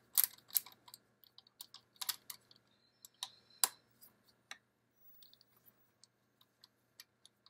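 Irregular sharp metallic clicks and ticks of a hex driver turning out the handguard's Loctited hex screws, with the loudest clicks in the first few seconds and fainter, sparser ones after about four and a half seconds.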